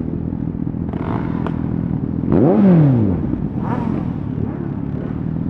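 Honda CBR1000RR Fireblade's inline-four with a Shark Factory aftermarket exhaust running steadily under way. About two and a half seconds in, the engine note rises briefly and then falls away, the loudest moment.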